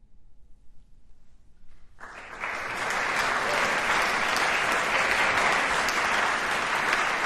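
Audience applause that breaks out suddenly about two seconds in, after a near-quiet pause, and continues at a steady level.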